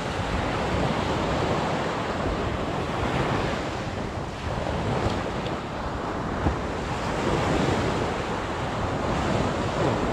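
Sea surf washing onto the beach, a steady rush that swells and ebbs every few seconds, with wind buffeting the microphone. A single short knock comes about six and a half seconds in.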